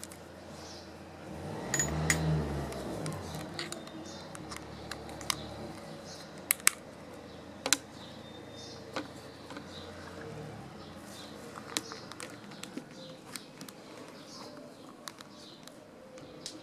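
Scattered clicks and rattles as a hanging luggage scale's metal hook and strap are handled and hooked onto a bicycle saddle, with a low rumble of handling about two seconds in.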